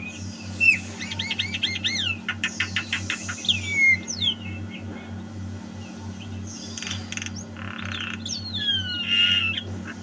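Javan myna (jalak kebo) calling in a varied run: quick repeated notes, downward-sliding whistles and harsh squawks, over a steady low hum.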